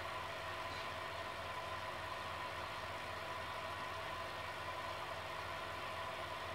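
Steady hum and hiss of running aquarium equipment, with air bubbling up through the water.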